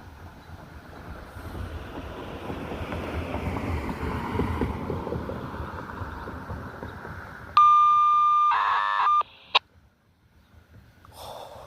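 A passing vehicle's rushing noise swells and fades. About two-thirds of the way in, a Baofeng UV-5R handheld radio gives a loud steady beep tone, then a short warbling data burst, and cuts off with a click. This is the radio polling signal of an outdoor warning siren system.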